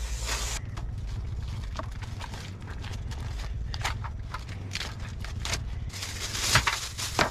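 White plastic bag crinkling and rustling while a dried squid is handled and torn apart by hand, in scattered crackles with a louder burst of rustling near the end. A steady low hum runs underneath.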